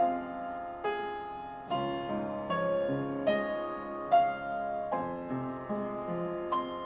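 Piano playing a slow, gentle introduction, a new note or chord struck about once a second and left to ring.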